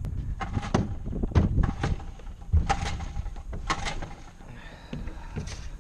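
Irregular knocks and clunks in a boat, a dozen or so sharp hits over a low rumble, as gear is handled on board.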